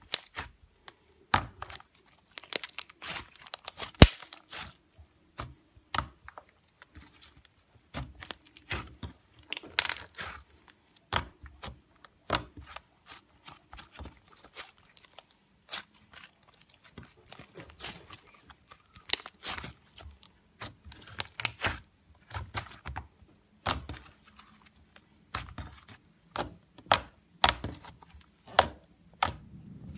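Hands kneading, pressing and folding a lump of thick, sticky slime on a tabletop: irregular sticky pops, crackles and clicks as it is squeezed and pulled apart.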